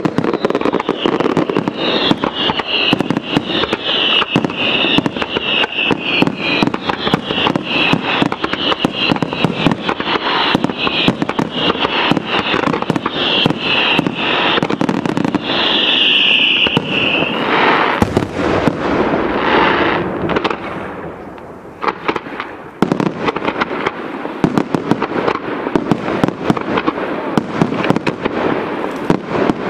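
Fireworks display in full barrage: a dense, rapid run of shell bursts and crackling reports, with a high pulsing hiss over roughly the first half. The bangs thin out briefly a little after twenty seconds, then pick up again.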